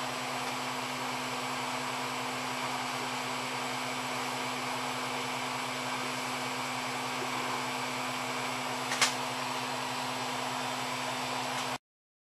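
Malyan M150 3D printer's cooling fans running with a steady whir and low hum. A single brief click comes about nine seconds in, and the sound cuts off abruptly near the end.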